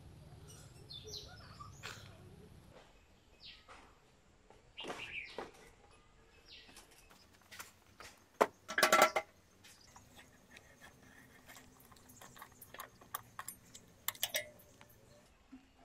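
Scattered clicks and metal knocks from parts of an old motorcycle being handled, with a loud clatter about nine seconds in. A bird chirps faintly in the first couple of seconds.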